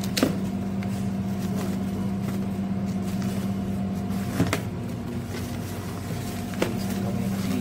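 A steady machine-like hum, the loudest thing throughout, with a few short crinkles and clicks of tissue wrapping being handled around a boxed portable speaker.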